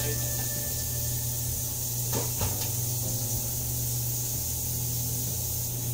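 Steady low hum of a running microwave oven, with two light knocks a little over two seconds in.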